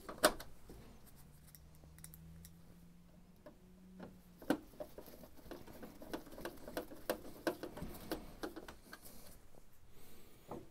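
Screws being driven into the printer's plastic case panels with a screwdriver: a run of small, faint clicks and ticks, with one sharper click just after the start and quicker ticking from about halfway on.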